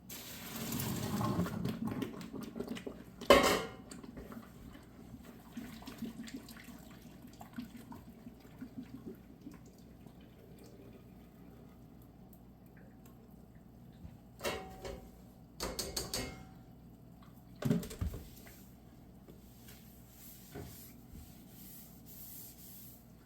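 Boiled elbow macaroni being drained into a colander in the sink: hot water pours out for about two seconds, then a loud metal clank. Later a few clatters of pot and dishes.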